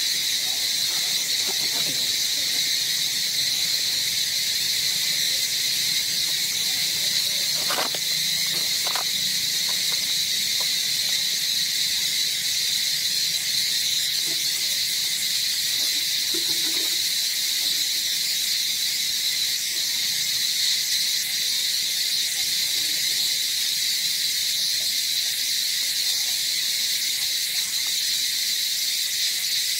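Chorus of insects droning steadily at a high pitch without a break, with a couple of faint knocks about eight seconds in.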